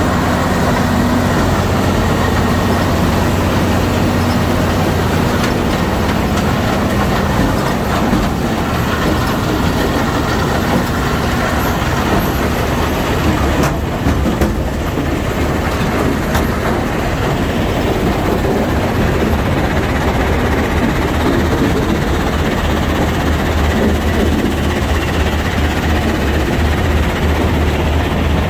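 Lippmann 4800R impact crusher running under load, crushing lime rock: a loud, steady, heavy machine drone with a low hum, mixed with the dense rushing noise of rock passing through the crusher and along its conveyor.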